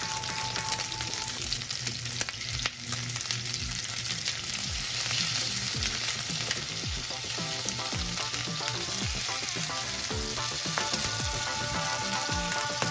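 Bone-in chicken pieces sizzling skin-side down in olive oil in a frying pan over high heat, searing until the skin turns golden brown.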